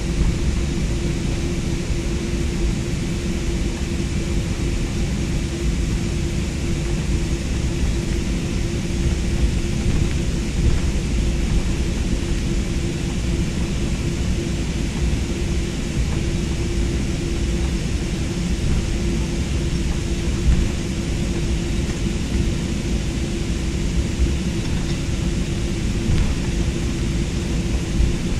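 Airliner cabin noise on the ground just after landing: a steady low rumble and hiss with a constant hum running through it.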